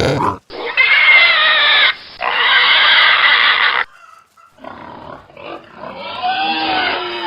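Pigs squealing: two long, loud, high-pitched squeals of about a second and a half each, followed by quieter, rougher pig calls near the end.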